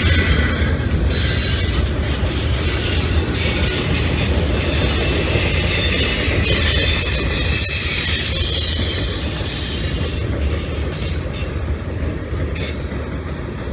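Freight cars rolling past, a low rumble under high-pitched wheel squeal; the squeal eases off about nine seconds in.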